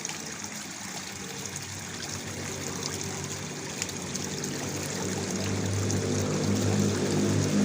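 Waterfall water splashing and trickling steadily. From about five seconds in, a low engine-like hum comes in under it and grows louder.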